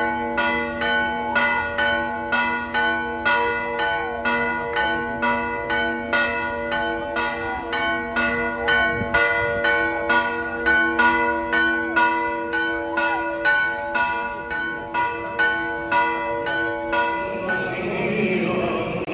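Greek Orthodox church bells ringing in a steady, even rhythm of about two strokes a second, several pitches ringing on over one another. Near the end the bells give way to the murmur of a crowded church.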